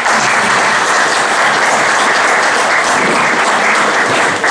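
Audience applauding, a steady, loud round of clapping.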